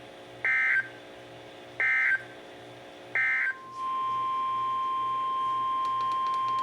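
Three short warbling data bursts of the EAS/SAME digital code, about a second and a half apart, marking the end of a NOAA Weather Radio alert. After the third burst a steady high-pitched 1050 Hz weather-radio alert tone comes on and holds.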